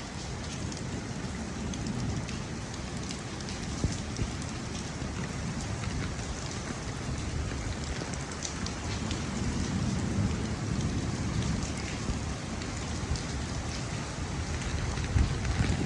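Heavy rain falling steadily, with many individual drops ticking on nearby surfaces. A low rumble swells about two-thirds of the way through.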